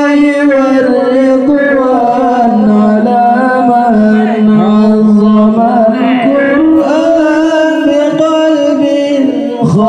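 A man singing shalawat into a microphone through a loudspeaker, in long drawn-out notes that step slowly up and down in pitch, with a brief break near the end.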